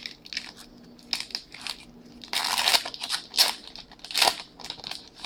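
Magic: The Gathering booster pack wrapper crinkling and being torn open: irregular short rustles, with a longer tearing stretch about halfway through.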